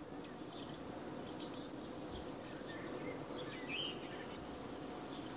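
Faint outdoor ambience: a steady background hiss with a low hum, and scattered faint bird chirps.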